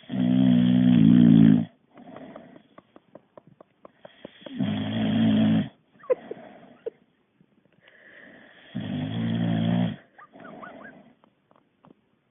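Boxer dog snoring in deep sleep: three loud, low snores about four seconds apart, each lasting about a second and a half and followed by a softer breath.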